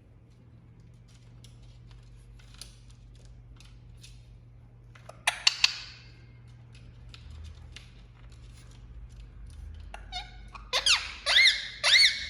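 Indian ringneck parakeet calling: a short burst of three sharp squawks about five seconds in, then a run of loud calls that bend up and down in pitch from about ten seconds on, with faint clicks before them.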